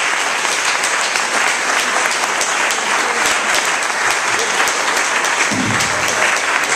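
Audience applauding: many hands clapping steadily at the close of a talk.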